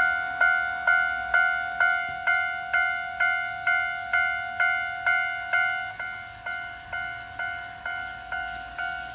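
Japanese railway level-crossing warning bell ringing: a steady two-tone 'kan-kan' strike repeating about twice a second, each strike fading before the next.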